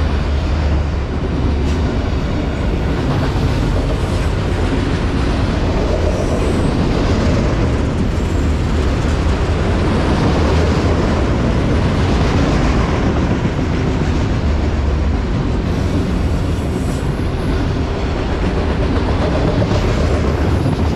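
Autorack freight cars rolling past close by, their steel wheels running on the rails in a loud, steady rumble.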